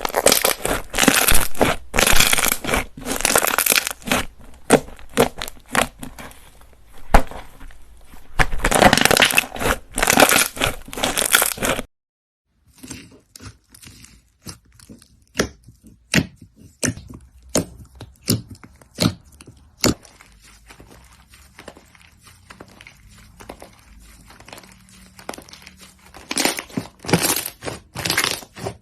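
Hands squeezing and stretching slime, making dense crackling and popping sounds. About twelve seconds in, the sound cuts off abruptly and a different batch follows with sparser, sharper clicks and pops that grow denser near the end.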